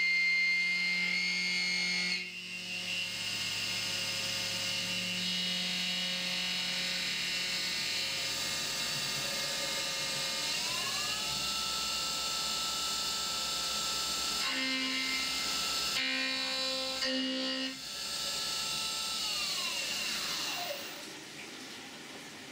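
CNC milling machine spindle driving an end mill through a cut in the gas block under flood coolant: a steady machine whine over the rush of coolant spray. About halfway the whine rises in pitch and holds there, and near the end it falls away as the spindle winds down.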